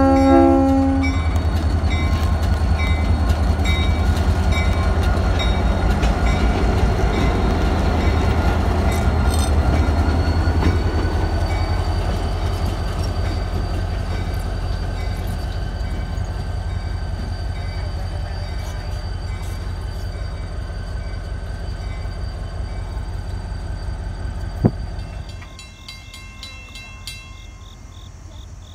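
Diesel locomotive passing close by: a brief horn blast at the start, then the engine's heavy low rumble as it pulls past while a level-crossing bell rings steadily. About 25 seconds in, the rumble drops away and crickets trill.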